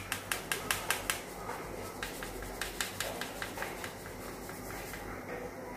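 Steel flour sieve being shaken over a steel plate to sift flour: quick, even light tapping, about four or five taps a second, growing fainter after about two seconds.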